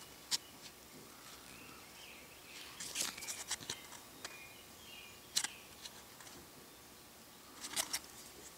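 Faint clicks and rustles of a stapled cardboard 2x2 coin holder being handled and turned over in the fingers. There is a cluster of small clicks about three seconds in and a few more near the end.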